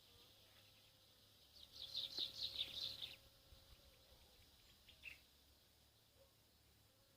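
A small songbird twittering in a quick, high burst of chirps for about a second and a half, then a single short chirp a couple of seconds later; faint.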